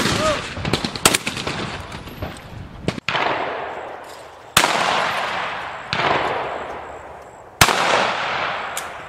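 Shotgun shots fired at clay targets, about six in a row spaced a second or two apart, each loud crack followed by a long fading echo.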